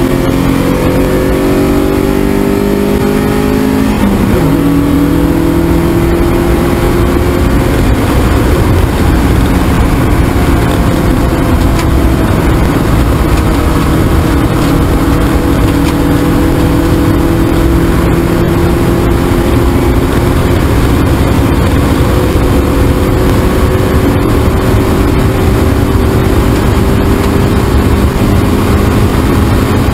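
A Spec Miata's 1.6-litre four-cylinder engine under hard acceleration: the revs climb, drop at an upshift about four seconds in, then climb slowly and steadily through the next gear until another upshift near the end.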